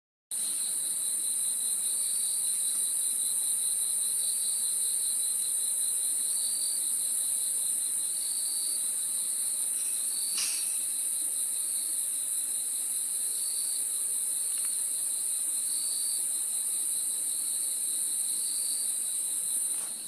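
Crickets trilling in a steady, high-pitched continuous drone. Fainter, lower chirps recur about every two seconds, and there is a single short click about halfway through.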